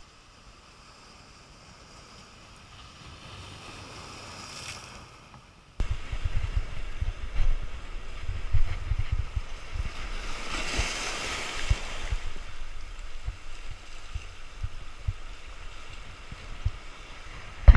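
Surf washing over a rocky shore, with wind on the microphone. About six seconds in the sound jumps louder into gusty wind rumble and buffeting, and a wave surges through a few seconds later.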